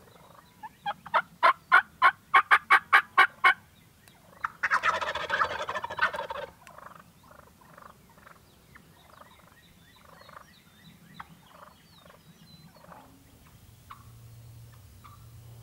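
Wild turkeys calling: a fast run of about a dozen loud notes, then a loud gobble about four and a half seconds in, followed by softer scattered short calls.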